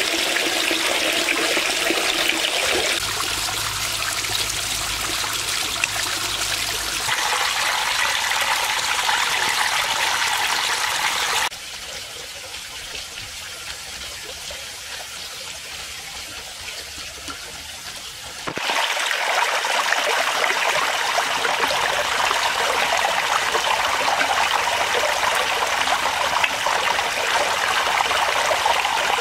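Water trickling and splashing over a small concrete waterfall ledge into a pond, a steady rush. It drops quieter for several seconds midway, then comes back.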